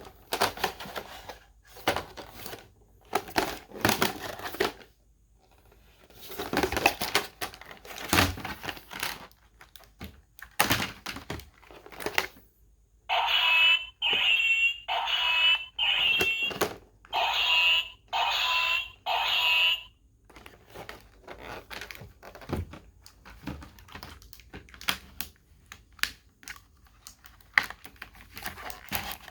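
Toy packaging being handled and opened by hand: irregular rustling, crinkling and clicks, with a run of about seven evenly spaced longer squeaky strokes in the middle.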